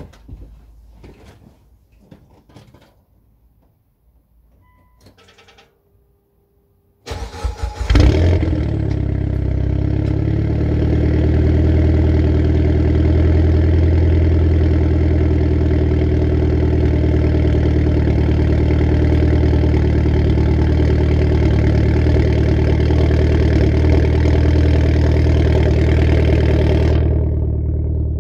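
Mitsubishi Lancer Evolution X's turbocharged 2.0-litre four-cylinder cold-started through a Tomei Expreme Ti titanium exhaust. After a few faint clicks, the starter cranks briefly about seven seconds in and the engine catches with a loud flare of revs. It then settles over a couple of seconds into a steady fast cold idle with a low drone.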